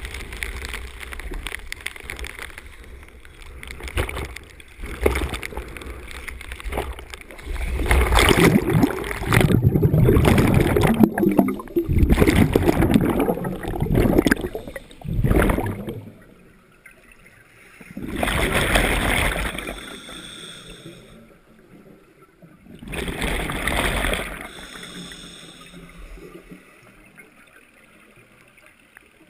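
Underwater scuba breathing: exhaled bubbles from a diver's regulator gurgling and rushing. There are two long surges about five seconds apart in the second half, and a rougher, louder rush of water noise in the first half.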